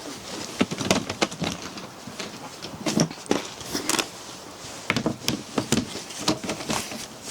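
Irregular sharp clicks, knocks and rustles, coming in clusters, over a steady noisy background.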